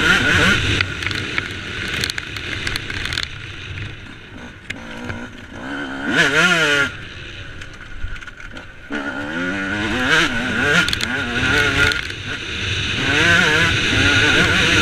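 Yamaha YZ125 two-stroke single-cylinder motocross engine, heard from the rider's helmet, revving up in several pulls with its pitch climbing through each, and dropping off between them as the throttle is rolled off.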